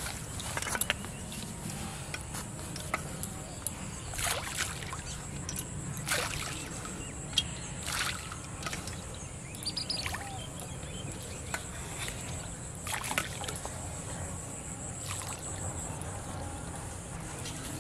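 Handfuls of cooked rice bait thrown onto still canal water, each throw landing with a short splash and patter, about half a dozen throws spread through the stretch, over a steady outdoor background rumble.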